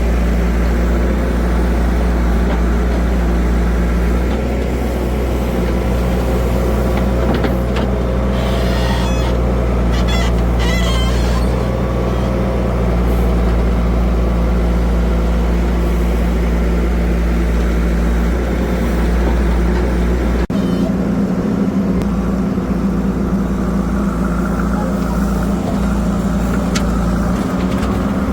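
Heavy diesel engine running steadily at a low, even speed. About twenty seconds in the engine note changes abruptly to a different steady pitch.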